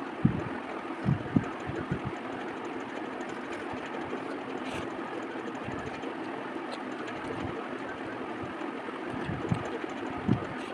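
Eating by hand from a steel plate: fingers working rice and chicken curry, with a few dull low knocks in the first two seconds and again near the end, over a steady background noise.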